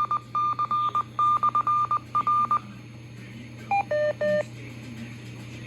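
Beep tones played through a weather radio's speaker. First comes a run of short and long beeps at one pitch, in a Morse-code-like rhythm, ending about two and a half seconds in. After a short pause come three quick beeps, the first higher than the other two. A steady low hum runs underneath.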